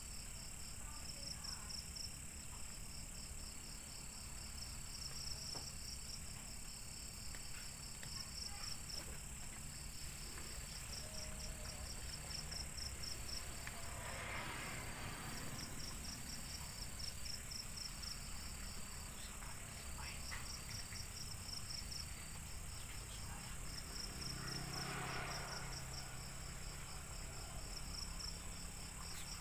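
Night insects chirping in rapid pulsing trains over a steady high drone. Twice, about halfway through and again near the end, a motorbike passes on a nearby road, rising and fading away.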